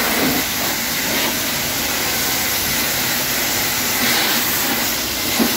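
Steady hiss of a water spray rinsing a car's body panels.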